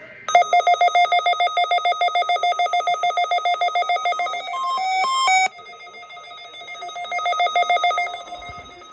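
Electronic alert tone of a weather radio's Required Weekly Test: a rapid warbling beep pulsing about ten times a second. About five seconds in it gives way to a few short stepped beeps, then the pulsing resumes more quietly and builds again.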